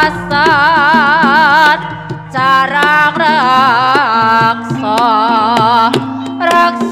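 Javanese gending music in Ponorogo style, with a wavering lead melody in phrases of a second or two over kendang drum strokes and steady low gong-like tones.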